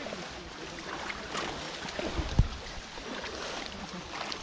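Muddy pond water sloshing and splashing as people wade and handle bamboo polo fish traps, with one low thump about two and a half seconds in.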